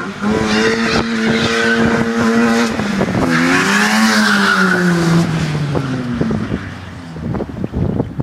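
Opel Corsa B's C20XE 2.0-litre 16-valve four-cylinder, breathing through a Group A tubular header and Group A cat-back exhaust, held at high revs on a steady note. About three seconds in the note dips and climbs again, then falls steadily in pitch and fades away.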